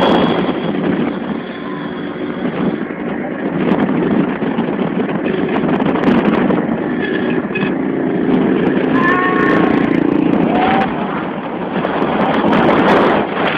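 Motorcycle engine running at road speed under a loud rush of wind on the microphone.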